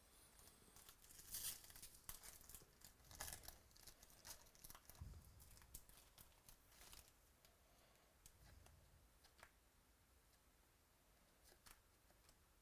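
Faint tearing and crinkling of a foil trading-card pack wrapper being ripped open, a run of short rips over the first seven seconds or so, followed by a few light clicks.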